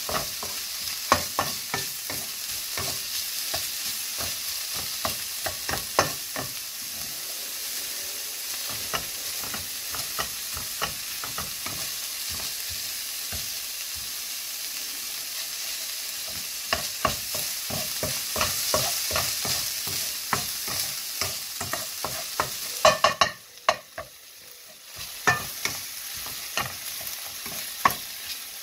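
Chopped bacon and green onion sizzling in a hot non-stick wok while a spatula stirs and scrapes them, with frequent light knocks of the spatula against the pan. Near the end the sizzling drops out for about two seconds, then comes back.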